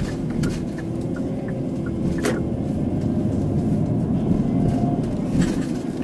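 Car driving at town speed, heard from inside the cabin: steady engine and tyre rumble, growing slightly louder, with a sharp click a little over two seconds in.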